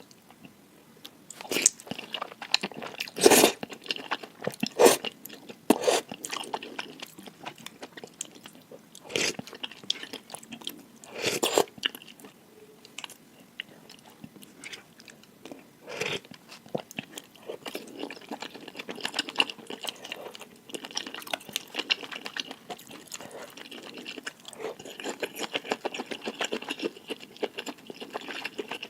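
A person eating noodles close to the microphone. There are several loud, sharp mouth sounds in the first twelve seconds or so, then steadier, softer chewing to the end.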